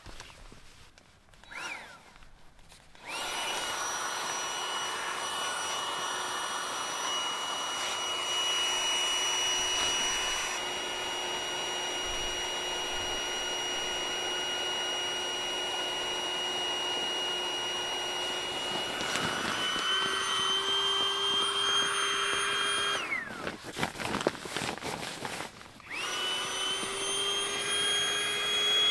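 Small electric air pump inflating an Exped Ultra 7R sleeping pad: a steady motor whine that starts about three seconds in and steps up in pitch a few seconds before it stops. After a short gap of handling noise it starts again, its pitch creeping up as the pad fills.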